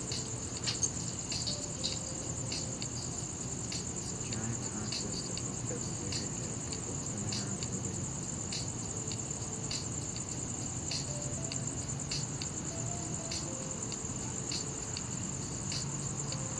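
Crickets chirping at night: a steady high-pitched trill, with other chirps repeating about twice a second.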